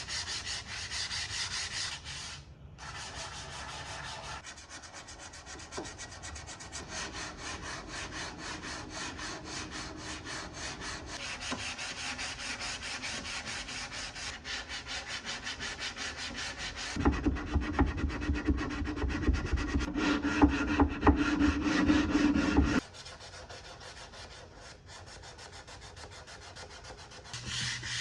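Hand sanding with 150-grit sandpaper on a wooden dresser, many quick scratchy back-and-forth strokes, levelling wood filler before staining. About seventeen seconds in, a louder, fuller stretch of sanding lasts several seconds, then drops back.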